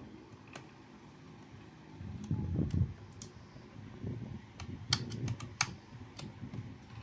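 Scattered light clicks and taps of a small screwdriver and hand tools working the hard-drive caddy screws on a laptop's plastic underside, with dull handling bumps about two to three seconds in.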